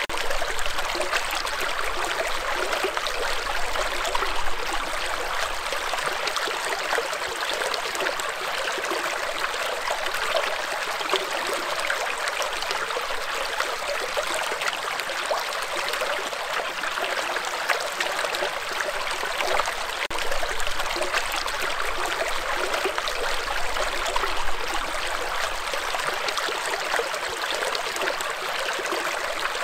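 Shallow rocky stream flowing and bubbling over stones in a steady rush.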